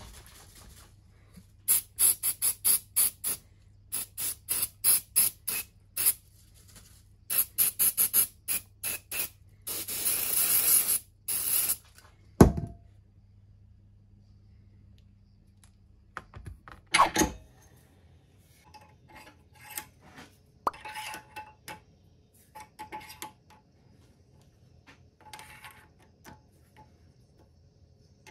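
Aerosol can of Akfix 705 cyanoacrylate glue activator sprayed in runs of short quick squirts, then one longer spray of about two seconds. A sharp knock follows, then faint clicks and taps as the glued blanks are handled.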